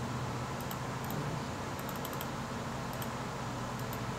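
Faint, irregular clicking of a laptop being worked while searching through software settings, several of the clicks in quick pairs, over a steady low hum.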